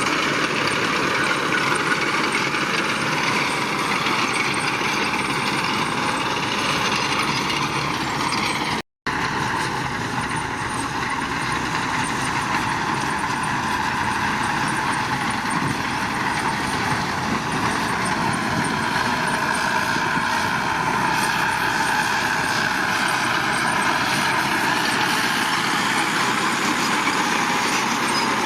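Heavy construction machinery running steadily, an engine with a dense mechanical din, cut by a brief silent dropout about nine seconds in.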